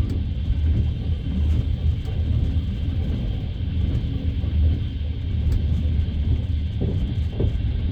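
Steady low rumble of a passenger train running along the rails, heard from inside the carriage, with a few faint short knocks of the wheels.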